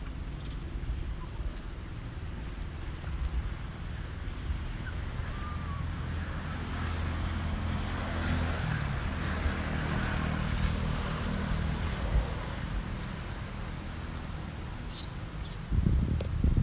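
A low, steady engine hum from motor traffic that swells in the middle and eases off again, with two brief high squeaks near the end and wind rumbling on the microphone at the very end.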